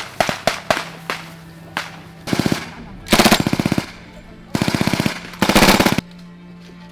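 Machine gun firing: a few separate shots in the first second, then four short bursts of rapid automatic fire, the last three the loudest.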